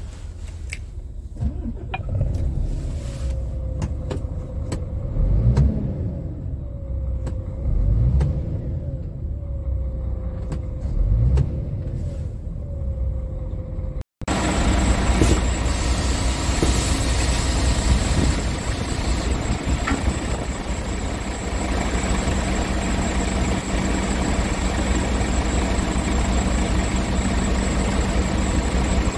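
Scania R tractor unit's diesel engine idling, heard from inside the cab, revved up and let fall back three times. After a cut about halfway through, it idles steadily, heard from outside beside the truck.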